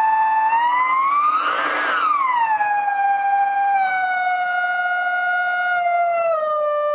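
Self-oscillation from a ProCo RAT and Marshall Guv'nor distortion pedal chain through a Marshall mini-stack amp, a steady high electronic whine that the pedal knobs bend in pitch. It glides up and back down about two seconds in, then steps lower twice and slides down further near the end.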